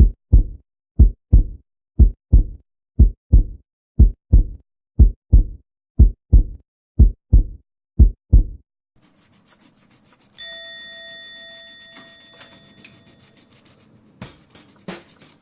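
A heartbeat sound effect: low double thumps about once a second for some eight seconds. Then a faint hiss, and a single bell-like ding about ten seconds in that rings out for a few seconds.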